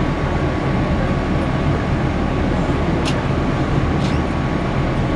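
An original PATCO rapid-transit train car running along the track, heard from the front of the car: a steady loud rumble of wheels and running gear with a faint steady whine, and two brief sharp high clicks about three and four seconds in.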